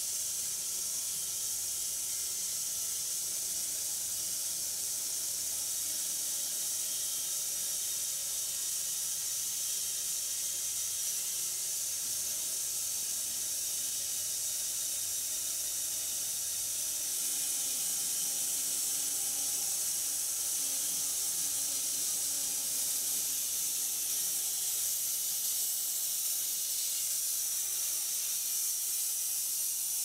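Homemade wide-cut bandsaw mill sawing through a red oak crotch log: a steady high hiss of the band blade in the cut.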